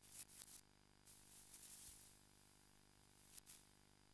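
Near silence: room tone with a faint steady hum and a few soft clicks.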